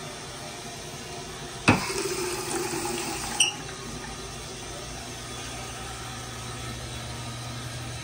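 Two-handle chrome bathroom sink faucet turned on with a sharp knock, water running into the basin for under two seconds, then shut off with a second sharp click.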